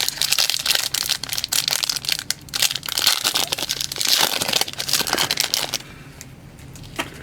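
Trading-card pack wrapper being torn open and crinkled by hand, a dense crackling that stops about six seconds in.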